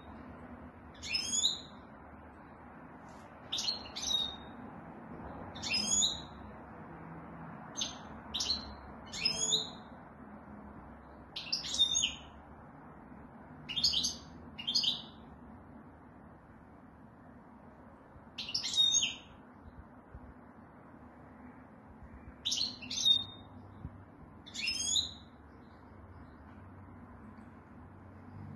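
Caged goldfinch giving short, separate chirping calls, roughly one every one to two seconds, some in quick pairs, over faint steady background noise.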